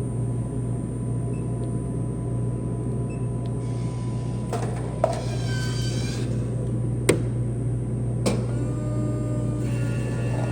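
Hot-drink vending machine making a French vanilla: a steady machine hum, with two stretches of whirring and a few sharp clicks.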